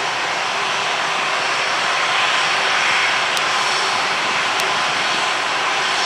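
Airbus A310 airliner's twin turbofan jet engines at climb power as it flies away after take-off: a steady jet noise that swells slightly about two to three seconds in.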